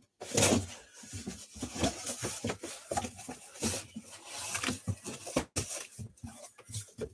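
Irregular rustling, tapping and knocking of things being handled close to the microphone.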